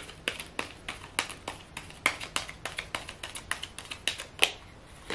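A tarot deck being shuffled by hand, the cards clicking and slapping against each other in quick, irregular strokes, several a second.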